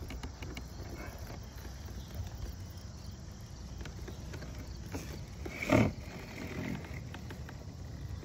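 Baitcasting reel's star drag being adjusted, faint clicks over a low steady background of wind and river. About six seconds in comes one short, louder, low, muffled sound.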